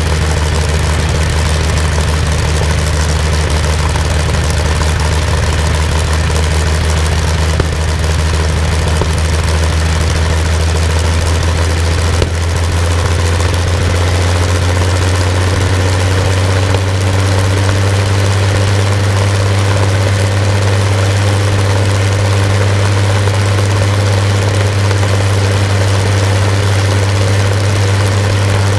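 Rolls-Royce Griffon 58 36.7-litre V12 aero engine running steadily on a test stand with its propeller turning, a deep, even drone; about twelve seconds in its pitch rises slightly as the engine picks up a little speed.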